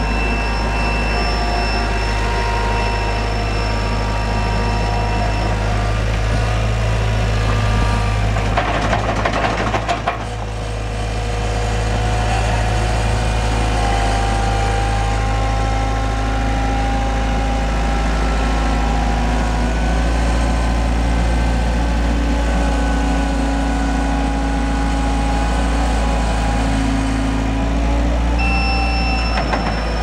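1995 Gehl SL5625 skid steer's four-cylinder diesel engine running steadily as the machine drives about and raises its loader arm. There is a brief rattling clatter about eight to ten seconds in.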